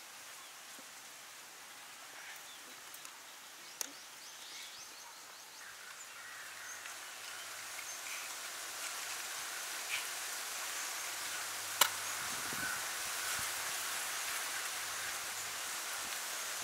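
Outdoor background hiss that slowly grows louder, with a few sharp clicks or taps, the loudest about two-thirds of the way through.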